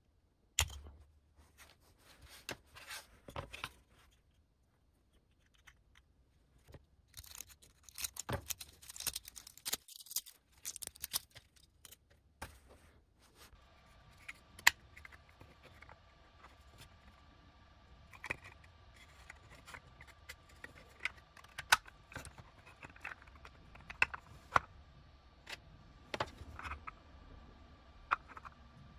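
Small hand-held parts of 3D-printed plastic being worked: a small screwdriver turning a screw into a plastic case, then plastic parts tapped and fitted together, in scattered sharp clicks and scrapes. A faint steady hum comes in about halfway.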